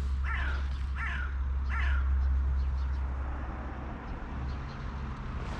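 Crow cawing three times in quick succession over the first two seconds, harsh calls falling in pitch, over a steady low rumble.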